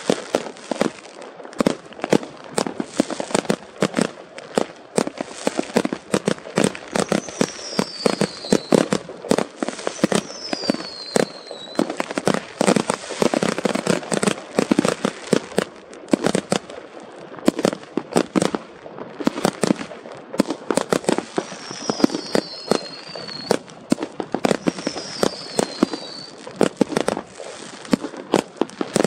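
Fireworks going off in a dense, continuous run of bangs and crackling, with a short falling whistle now and then.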